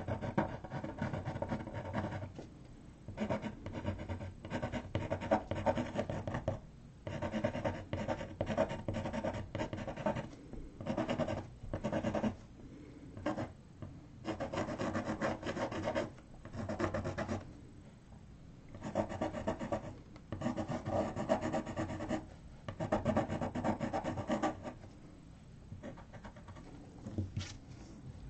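Pencil sketching: bursts of quick, short, scratchy strokes, each burst a second or two long with brief pauses between, stopping a few seconds before the end.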